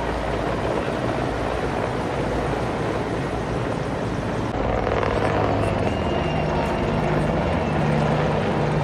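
Helicopter flying overhead: a steady rotor and engine drone that grows louder about four and a half seconds in.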